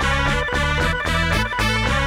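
Background music with a steady beat and keyboard and guitar-like tones.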